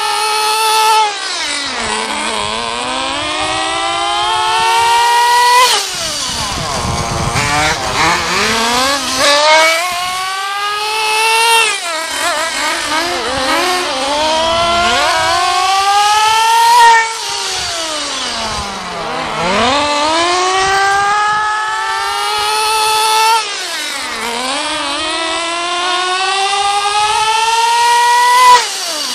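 Small nitro glow engine of a radio-controlled buggy revving high and easing off over and over as it laps the course. Its pitch climbs with each burst of throttle, and it passes close by about six times, each pass loud and then falling off suddenly.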